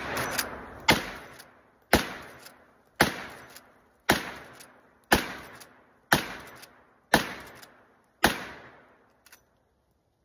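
Smith & Wesson Model 1854 lever-action rifle in .44 Magnum fired eight times in quick succession, about one shot a second, each sharp report trailing off over most of a second. A faint click follows about a second after the last shot.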